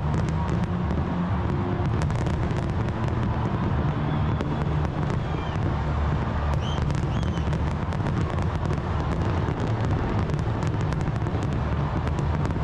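Fireworks display: a continuous low rumble of bursts with many sharp crackles and bangs, and a few brief whistles partway through.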